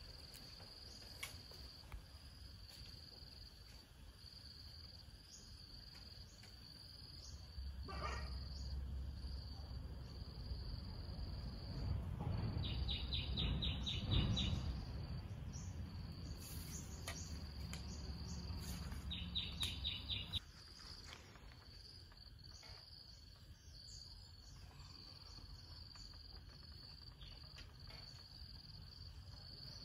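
Insects trilling, a steady high-pitched drone, with two short runs of fast chirping pulses about a third and two thirds of the way in. A low rumble rises under it from about 8 seconds and cuts off suddenly around 20 seconds.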